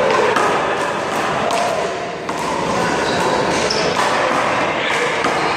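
A small rubber handball smacking against the wall and bouncing off the pavement several times during a rally, under the chatter of onlookers.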